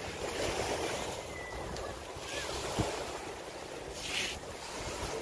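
Wind buffeting the phone's microphone: an irregular low rumble under a steady hiss, with a brief louder hiss about four seconds in.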